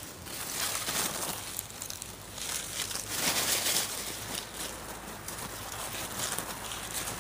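Irregular scraping and rustling as hands dig through the cooled ash and dirt of a pit kiln to uncover fired clay pottery.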